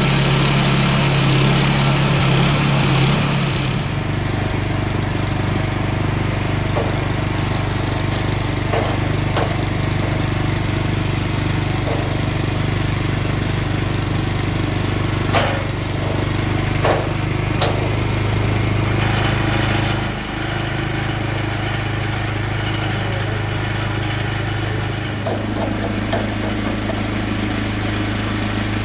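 Woodland Mills HM126 portable bandsaw mill cutting a pine log for the first few seconds, its engine running hard under the hiss of the blade in the wood. The engine then runs on steadily without cutting, with a few sharp knocks partway through as a log is handled on the mill's steel bed.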